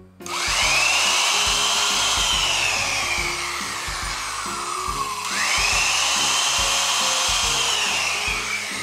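Corded electric drill boring a hole of about 9 mm into a softwood board. The motor whine rises quickly as it spins up, then slowly sinks in pitch as the bit loads in the wood. About five seconds in it revs up again and sinks once more.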